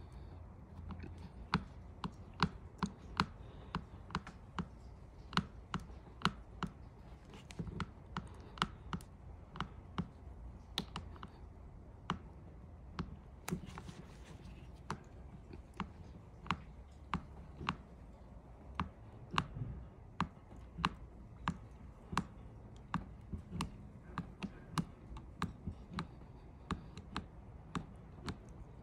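Razor blade sawing back and forth through a thick rubber piece, giving a steady run of sharp clicks, about two a second.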